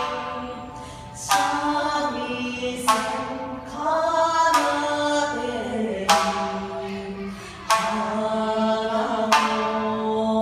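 Female voices singing long, slowly bending held notes in Japanese folk style, accompanied by a shamisen whose sharp plucked strokes fall about every second and a half.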